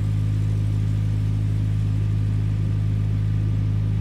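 Narrowboat's inboard engine running steadily at cruising speed, a low, even hum that does not change.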